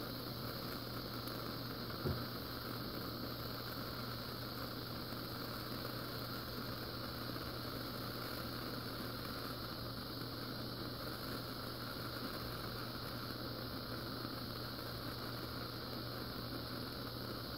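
Handheld gas torch burning with a steady hiss as it heats a seized screw, with one light knock about two seconds in.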